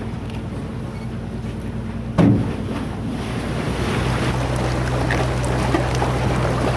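A boat's engine hums steadily while small pieces of glacier ice fizz and crackle around the hull in many tiny ticks, growing denser in the second half. A single loud knock comes about two seconds in.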